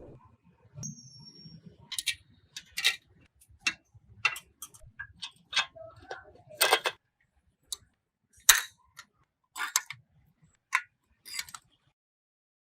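Irregular sharp clicks and light metallic taps, about fifteen, unevenly spaced, some with a brief high ring: small tools and parts being handled during hand work.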